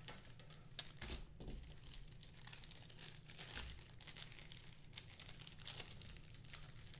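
Faint crinkling and rustling of a thin plastic card sleeve as a trading card is handled and slipped into it, with scattered light clicks.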